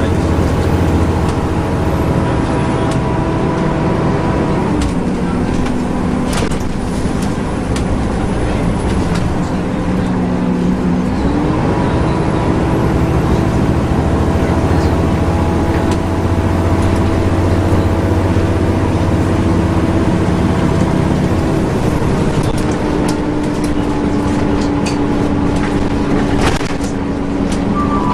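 Volvo B7LA articulated bus heard from inside the saloon while under way: engine and cooling-fan drone with steady tones that drop about five seconds in, climb back about eleven seconds in and drop again near twenty-two seconds, over road noise, with a few rattles and knocks near the end.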